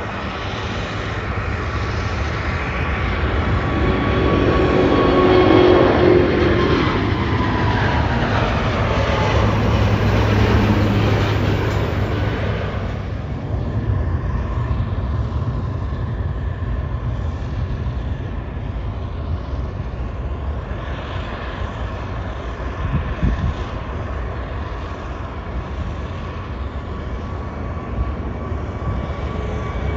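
Airbus A380 taking off at full thrust, its four Rolls-Royce Trent 900 turbofans loud, with a whine that falls in pitch as it passes. The sound then drops suddenly to a lower, steadier jet rumble from another A380 at a distance, which builds again near the end as it lifts off.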